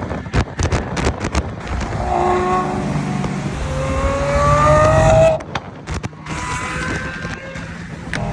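Lamborghini Aventador SVJ's naturally aspirated 6.5-litre V12 under hard acceleration: a run of sharp exhaust crackles and pops, then the engine note climbs steadily for about three seconds, cuts off abruptly at a shift, and climbs again through the next gear.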